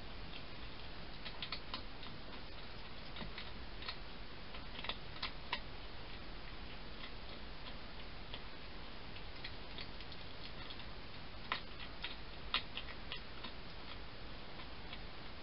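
A hedgehog with its head inside a cardboard feeding box, making small, irregular crunching clicks as it eats, over a steady hiss.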